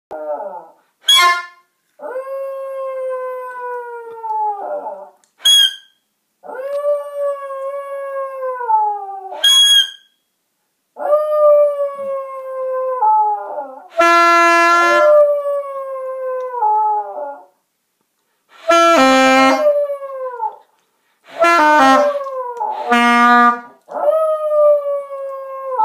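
Yorkshire terrier howling in a series of long, wavering howls that sag in pitch at the end of each, set off by a misplayed saxophone whose harsh, squawking notes break in among them, mostly in the second half.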